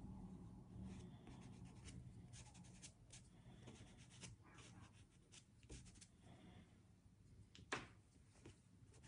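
Faint scratching and rubbing of a soft pastel stick on coloured pastel paper, in many short strokes, with one sharper tap a little before the end.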